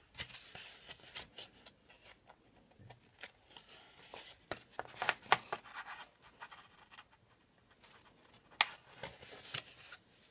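Small scissors snipping through washi tape and cardstock, with the paper rustling as it is turned between cuts; one sharper snip comes about eight and a half seconds in. The sound is faint.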